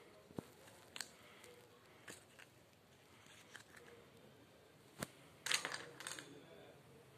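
Small plastic erasers and sharpeners clicking and knocking as they are handled and dropped into a cardboard box: a few separate light clicks, then a short burst of clatter and rustling about five and a half seconds in.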